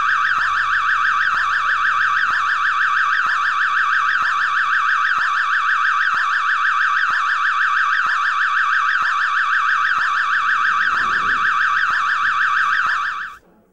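Electronic alarm sounding continuously: a loud, high, rapidly warbling tone that cuts off abruptly near the end.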